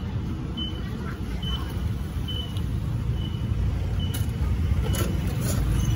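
Steady low rumble of street traffic and engines, growing slightly louder toward the end, with a faint short high beep recurring about once a second.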